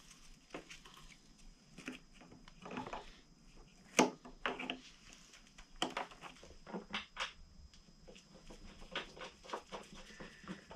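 Scattered light clicks and rustles of gloved hands handling wiring plugs and plastic fairing parts behind a motorcycle's front fairing, with the sharpest click about four seconds in and a quick run of clicks a few seconds later.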